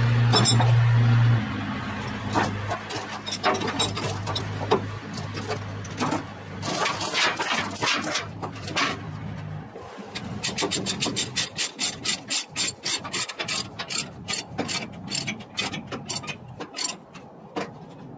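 A low engine hum stops about a second in. Steel tie-down chains then rattle and scrape on the trailer deck, and from about ten seconds in a run of quick clicks follows as a ratchet load binder is cranked to tighten the chain.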